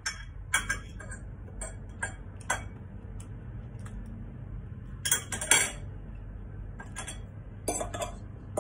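Metal fork clinking and scraping against ceramic plates and bowls while eating: scattered sharp clinks, with a busier run of clatter about five seconds in and again near the end.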